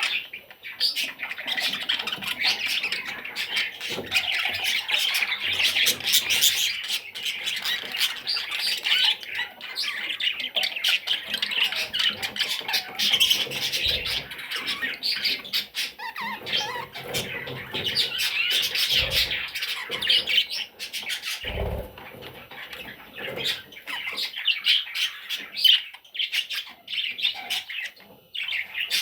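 Budgerigar chicks calling continuously in a dense, high chatter of many overlapping short calls, with a couple of dull thumps about two-thirds of the way through.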